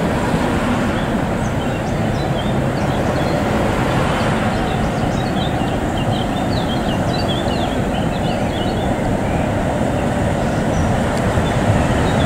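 Steady vehicle rumble at a tram stop, with birds chirping over it through the middle.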